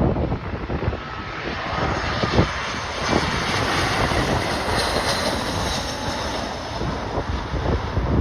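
Landing jet airliner's engines passing on approach: a rushing noise that swells, peaks with a faint high whine, and fades again, over gusty wind buffeting the microphone.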